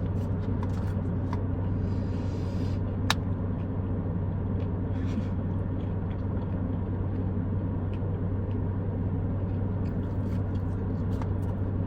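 Steady low rumble and hum of a car running while parked, heard inside the cabin, with a few faint clicks from chewing and one sharp click about three seconds in.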